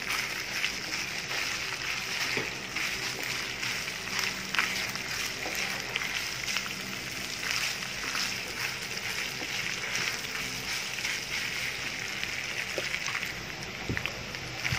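Thin-sliced lamb sizzling steadily as it stir-fries in a nonstick frying pan, with a wooden spatula scraping and tapping against the pan a few times.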